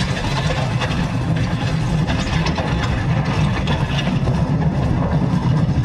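Heavy diesel engine of a cartoon bulldozer idling steadily with a low, rapid rumble.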